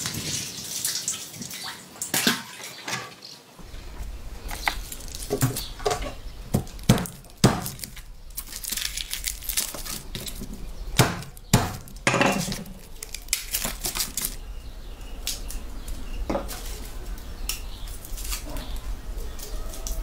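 Food-preparation sounds: water running from a hose for the first few seconds, then heads of garlic being broken apart and peeled on a wooden board, giving a string of sharp knocks, cracks and clicks.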